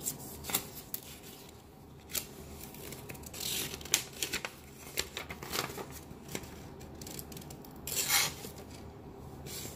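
Real Steel H6 pocket knife blade cutting, several short rasping cuts with small clicks between them. The longest cut comes about eight seconds in.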